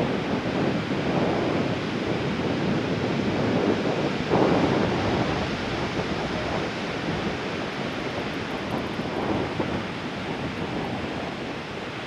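Ocean surf breaking on a sandy beach, mixed with wind buffeting the microphone; the noise swells and eases, with a sudden stronger surge about four seconds in.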